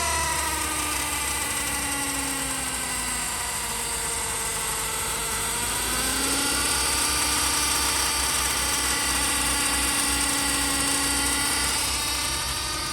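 Chevrolet Cruze 1.8's gearbox whining loudly over a steady engine hum. The whine's pitch falls over the first few seconds, climbs again about six seconds in, then holds. It is the airplane-like whine of a faulty transmission.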